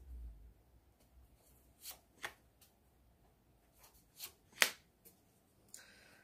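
A deck of oracle cards being shuffled by hand: a handful of short, sharp card snaps and taps with pauses between them, the loudest about two-thirds of the way through.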